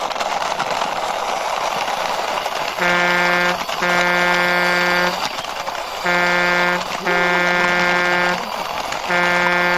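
A truck horn honking in a short-then-long pattern, repeated three times, starting about three seconds in. Before it a steady hiss runs.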